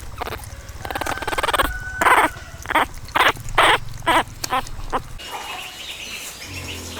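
Newborn puppies whimpering: a quick series of about six short, high calls in the middle, over a low steady hum.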